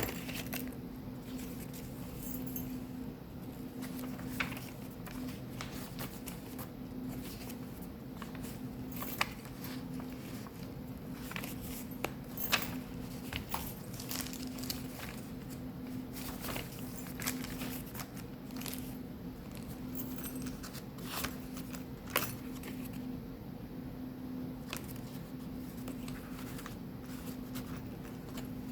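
A handmade junk journal being paged through and handled: soft paper rustles with scattered light clicks and taps, over a steady low hum.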